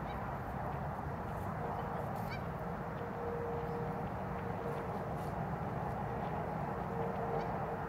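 Faint goose honking over steady outdoor background noise.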